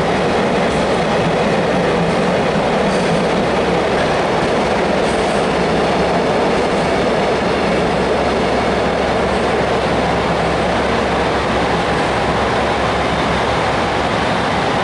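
Freight train of container wagons running past on the rails, a steady rumble.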